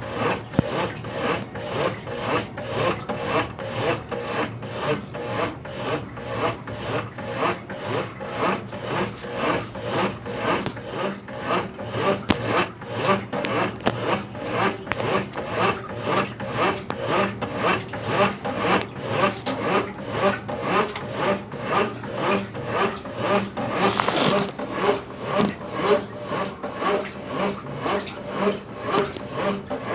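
Consul Facilite 10 kg top-loading washing machine agitating a load of clothes in water with a Brastemp BWL09 agitator during the wash stage. It makes a steady rhythmic swish, about two strokes a second, as the agitator reverses back and forth.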